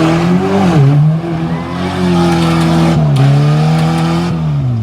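Off-road 4x4's engine revving hard under load, its revs rising and falling several times and dropping away near the end.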